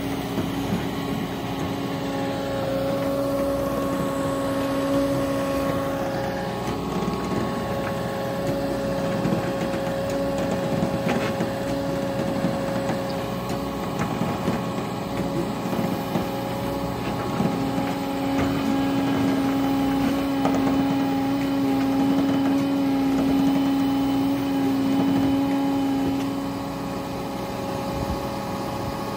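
Menzi Muck M535 spider excavator's diesel engine running steadily under hydraulic load as the machine works its arm and legs down a near-vertical wall. A steady whine sits over the engine and grows louder for several seconds past the middle.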